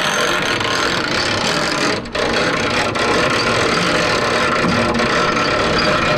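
A pickup truck's engine idling steadily, with a brief dip about two seconds in.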